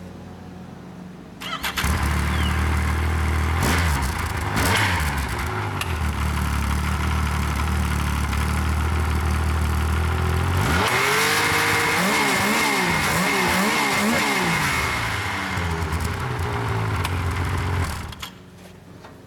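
2008 Yamaha Nytro snowmobile's four-stroke triple, on its stock exhaust, starting about a second and a half in and idling with two quick blips of the throttle. About halfway through it is revved up and down several times, then drops back to idle and shuts off near the end.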